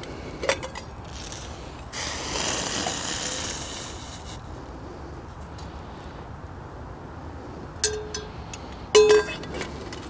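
A click, then a couple of seconds of soft rushing noise, then a few sharp clinks near the end: a tea cup knocked by metal camp gear, ringing briefly on a clear tone.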